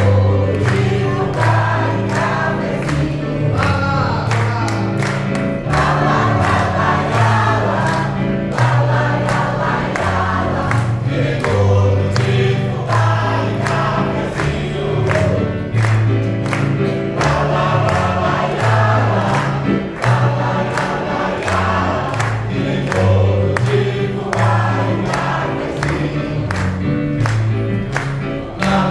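A choir singing over an accompaniment of low held bass notes that change every second or so, with frequent short percussive beats.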